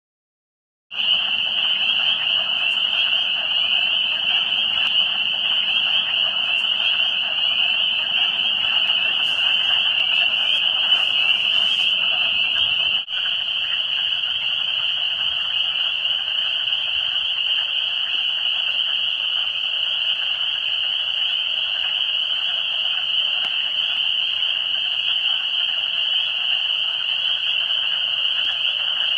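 A dense chorus of frogs calling in a steady, high-pitched mass. It starts about a second in, breaks off for an instant near the middle, and then goes on with less of the lower sound beneath it.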